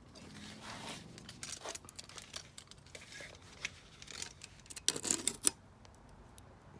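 Small clicks, scrapes and rustles of tools and parts being handled, with a louder cluster of clicks about five seconds in.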